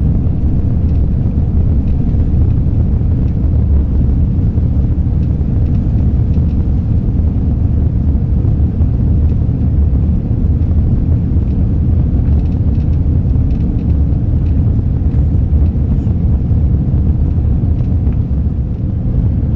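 Steady low rumble of an Airbus A340 heard inside the cabin during takeoff: four jet engines at high power and rushing air.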